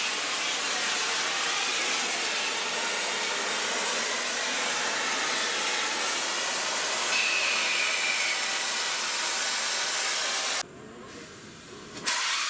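Oxy-fuel cutting torch hissing steadily as it cuts steel, then cutting off abruptly about ten and a half seconds in, with one more short burst of gas a little over a second later. The flow dies because the oxygen tank has run empty.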